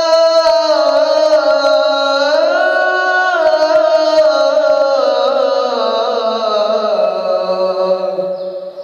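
A man's solo voice chanting the azan, the Islamic call to prayer, drawing out the end of "hayya 'ala-s-salah" in one long ornamented line. The pitch steps up about two and a half seconds in, then slowly falls and fades near the end.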